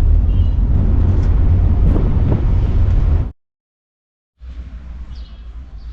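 Loud outdoor background noise with a heavy low rumble, cut off abruptly a little over three seconds in; after about a second of silence, quieter outdoor background noise.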